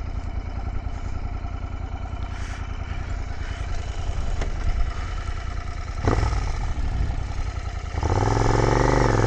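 Royal Enfield 650 twin motorcycle engine idling steadily, with a short clunk about six seconds in. Near the end the engine gets louder as the bike pulls away.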